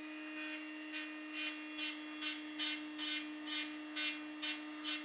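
Hand file rasping across the end of a piston ring in quick, even strokes, about two a second, stopping near the end. The ring end gap is being opened a little at a time because the ring is still too tight in the bore.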